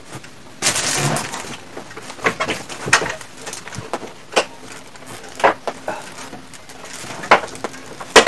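Irregular plastic clicks and knocks as parts of a split air conditioner's indoor unit are handled and fitted back into place, with a short scrape about a second in.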